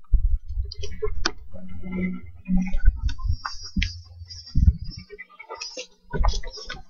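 Handheld camera carried at a run: a low, uneven rumble of the microphone being jostled and buffeted, with scattered clicks and knocks. The rumble fades out about five seconds in and surges again briefly about a second later.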